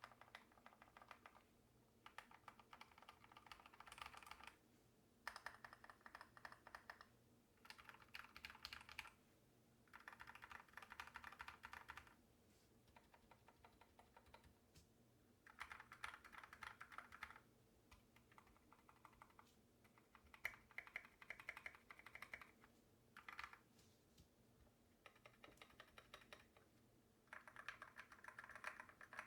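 Mechanical keyboard with lubed Kailh Speed Silver linear switches and Domikey keycaps being typed on in quick bursts of keystrokes a second or two long, with short pauses between them. A faint steady hum sits underneath.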